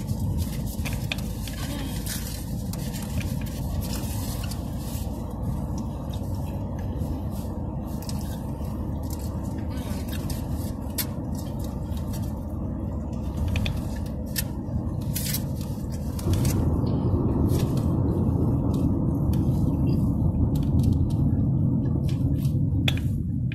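Steady low rumble of a car, heard from inside the cabin, growing louder about two-thirds of the way through. Scattered small clicks and crinkles come from eating a foil-wrapped taco.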